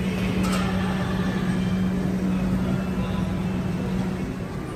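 Steady low hum over a constant bed of noise around a commercial fish grill counter, with a single short click about half a second in; the hum fades near the end.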